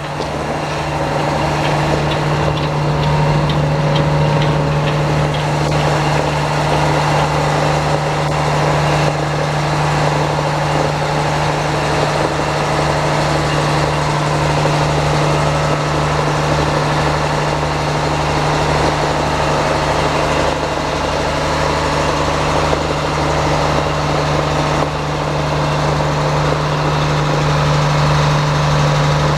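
Sawmill engine running at a steady speed, driving the mill, with a constant hum and an even low throb.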